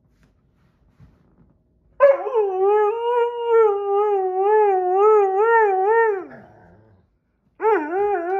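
Husky-Malamute mix howling: one long howl whose pitch wobbles up and down about twice a second and falls away at its end, then a second howl starting near the end that dips and then holds steady. The howling voices his displeasure at the other dogs playing.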